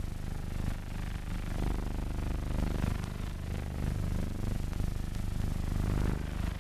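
A steady low mechanical rumble and rattle with a low hum and faint crackling clicks throughout.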